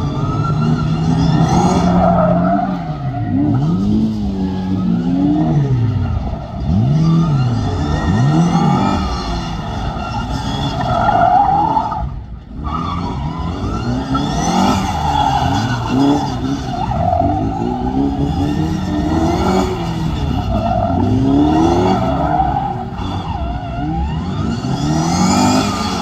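Cut-down open-top Mini's engine revving up and falling back again and again, every second or two, as it is driven hard through tight turns, with its tyres squealing. The engine eases off briefly about twelve seconds in.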